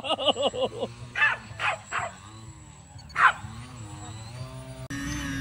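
A dog barking: a quick string of short, high calls in the first second, then about four separate barks over the next few seconds. A steady hum comes in just before the end.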